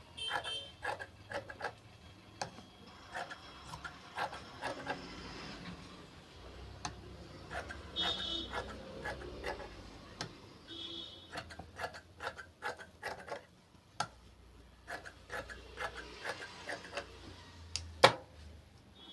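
Scissors snipping through cloth in irregular clicks, with fabric rubbing as the pieces are handled. A single sharper knock comes near the end.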